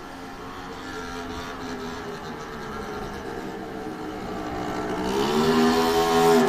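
Motorcycle running with its muffler removed, coming closer and growing steadily louder. About five seconds in the engine revs up, its pitch rising and holding at the loudest point. The very loud exhaust note comes from the missing muffler.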